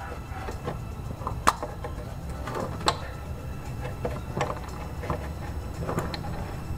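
A few separate light clicks and taps from pliers handling a small nut on the wiper linkage, over a low steady hum.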